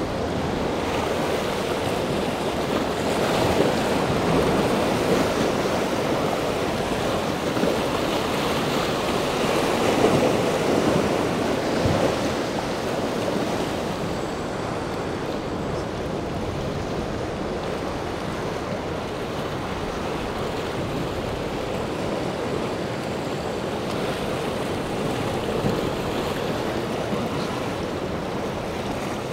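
Rushing water of waves and a motor yacht's wake breaking in choppy inlet water, with wind on the microphone. It swells louder from a few seconds in to about twelve seconds, then settles to a steady wash.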